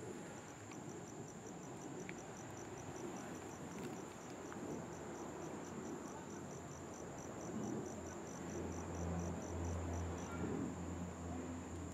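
Cricket chirping in a steady series of short, high pulses, about four a second, that stops near the end, over a continuous high insect trill. A low rumble swells in the second half.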